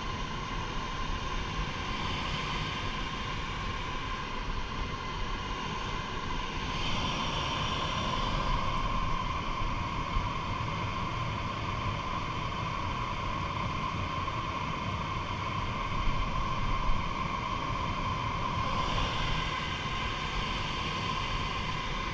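Steady running machinery noise with a constant mid-pitched tone, unchanging throughout, with a couple of faint knocks near the end.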